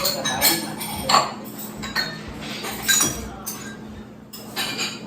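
Dishes and cutlery clinking: a string of short, irregular clinks and knocks.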